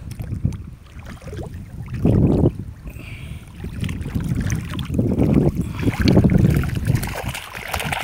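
Water sloshing and churning as hands work a fish net in murky water, heard as a low rumble in uneven surges, strongest about two seconds in and again in the second half.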